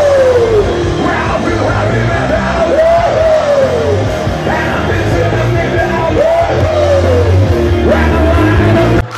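Live rock band with a lead singer, loud: a sung phrase that rises and falls comes round about every three seconds over the band. It cuts off abruptly at the very end.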